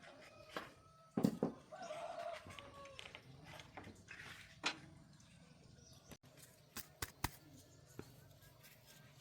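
Scattered knocks and clicks of hand-tool work on tractor parts, the loudest about a second in, with a few sharper clicks later.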